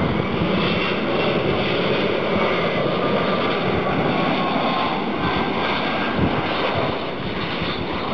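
Twin-engine jet airliner on final approach to landing: a steady rushing engine noise with a faint whine that slides slowly downward in pitch as the aircraft passes.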